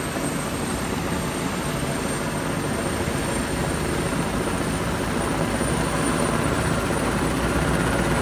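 Helicopter's turbine engine and main rotor running steadily, with a thin high turbine whine over the rotor noise, growing slightly louder toward the end.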